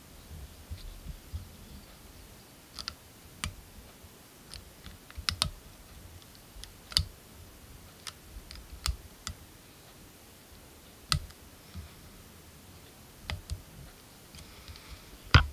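Irregular small clicks and ticks from a metal whip-finish tool and the bobbin holder working the tying thread at a fly-tying vise while a whip finish is made, with a louder click right at the end.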